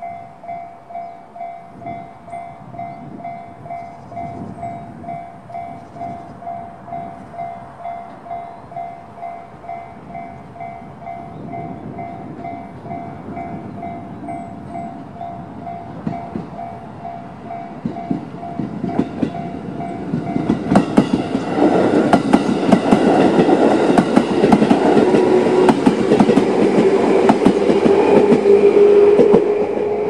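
A JR-standard electronic level-crossing bell rings in steady pulses. A JR 211 series electric train approaches, growing louder, and passes close by from about two-thirds in, its wheels clattering over the rail joints with a rising motor tone, until it has gone by near the end.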